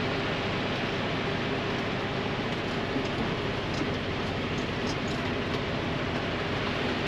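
Steady cab noise of a semi-truck rolling slowly: the diesel engine running low under an even hiss.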